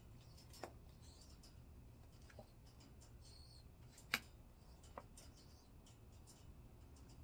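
Quiet handling of a deck of tarot cards: a few soft clicks and taps, the sharpest about four seconds in, with faint sliding rustles over a low steady hum.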